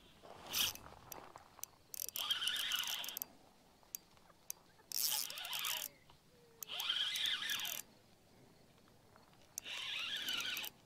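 A spinning reel (Shimano Vanford 2500) whirring in four separate bursts of about a second each, after a brief one just at the start.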